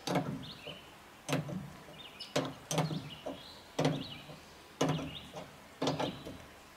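Wrench working the mounting nut of an old 102-inch steel whip CB antenna loose on a pickup's bumper mount: sharp metallic clicks about once a second as the nut is turned off.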